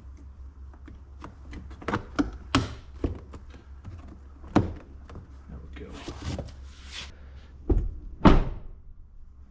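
Interior door trim panel being knocked and pressed into place on a car door: a series of sharp plastic knocks, a rustle, then two heavier thumps near the end.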